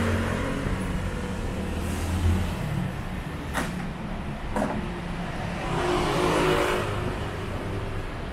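Street traffic: a vehicle engine hums low, then fades after a couple of seconds. Two sharp clicks follow, and another vehicle swells up and passes about six seconds in.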